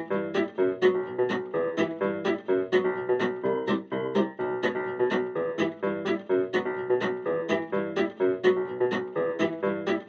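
Background music: plucked guitar over a steady, even beat.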